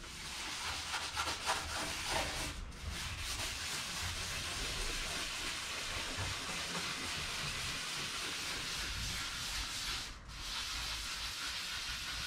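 Aluminium aircraft skin being scuffed by hand, a steady rasping hiss of abrasive scrubbing that roughens the bare metal before priming. It breaks off briefly twice.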